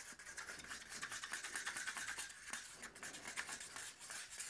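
Wooden craft stick stirring acrylic paint and Floetrol in a small cup: a faint, rapid, steady scraping as the stick rubs round the cup's sides and bottom.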